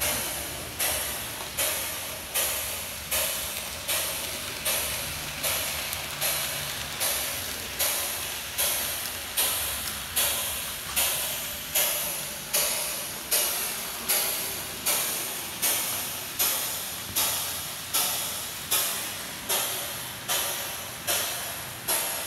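Steam locomotive exhaust chuffing at a slow, steady beat of about four chuffs every three seconds, each chuff cutting in sharply and dying away into a hiss.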